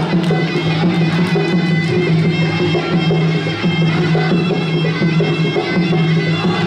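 Live Khmer boxing music: a sralai reed oboe plays a continuous, nasal melody with a bagpipe-like sound over steady percussion.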